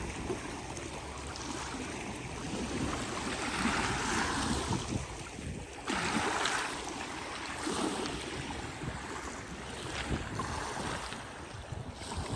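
Small sea waves washing onto the shore, swelling and easing about every two seconds, with light wind on the microphone.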